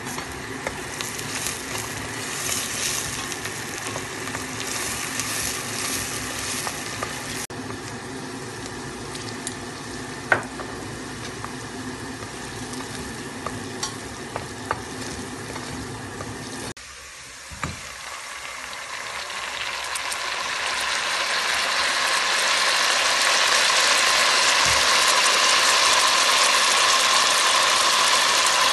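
Diced onions frying in olive oil and butter in a stainless steel pot, stirred with a wooden spoon that knocks against the pot now and then, over a steady low hum. About two-thirds of the way in, after a brief lull, a block of tomato sits in the hot oil and the sizzle swells to a loud, steady hiss.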